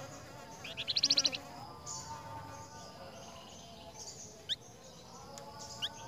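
Flamboyan songbirds calling: a loud, fast run of high chirps about a second in, then a few short, sharp high notes later on, over softer whistled notes.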